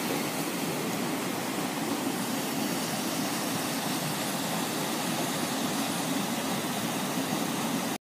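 Steady rush of a rocky mountain stream pouring down small cascades between boulders.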